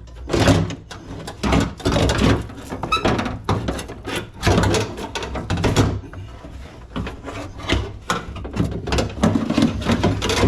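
A loosened power window regulator assembly being wrestled out of a 2005 Jeep Liberty's front door shell. Its metal rails, cables and motor clank, scrape and rattle against the door's sheet metal in irregular clusters of knocks throughout.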